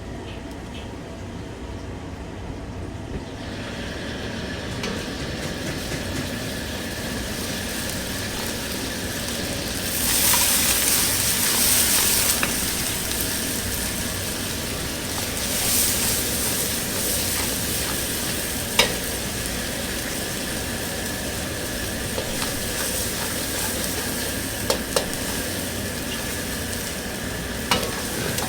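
Food sizzling and being stirred in a hot wok, with louder hissing surges about ten seconds in and again a few seconds later. A few sharp metal utensil clinks come near the end.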